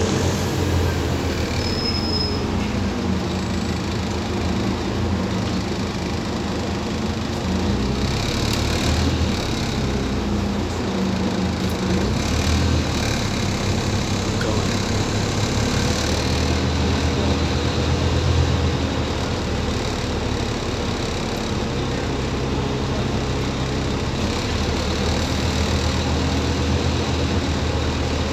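Scania OmniCity single-deck bus heard from inside the passenger saloon while under way: a steady low engine and drivetrain drone with road rumble. The engine note drops and rises as the bus changes speed.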